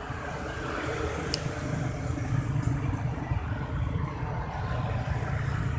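Motor vehicle engines running on the road beside the bridge: a steady low hum. A single sharp click comes about a second in.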